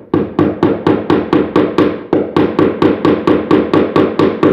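Hammer driving nails into wooden rafters in a rapid, steady run of about four strikes a second.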